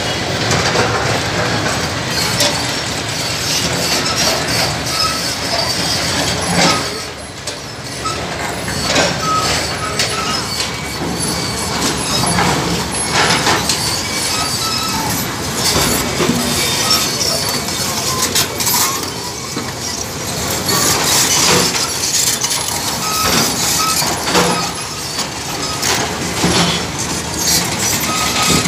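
Hydraulic excavators working a demolition site: diesel engines running under load, with repeated knocks and clatters of broken concrete and stone being scooped and dropped into a tipper truck.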